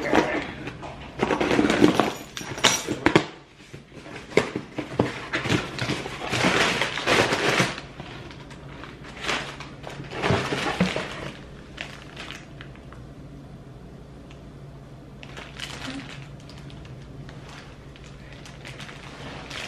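Cardboard shipping box being cut and torn open by hand, in repeated bursts of tearing and rustling, then a plastic zip bag crinkling near the end.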